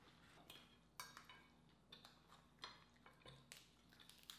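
Faint, scattered clicks and clinks of forks against dinner plates, about a dozen light taps.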